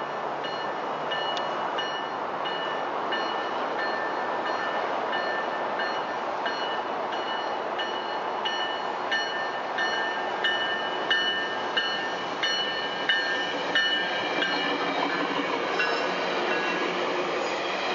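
Tri-Rail commuter train approaching and rolling through a grade crossing, its rumble building, while the crossing bell rings about twice a second. Near the end the bilevel cars pass close by, with wheels clacking over the rails.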